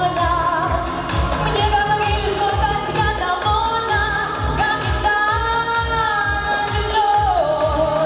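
Girls singing a pop duet into microphones over a backing track with a steady bass beat; the sung melody holds long notes and drops in pitch near the end.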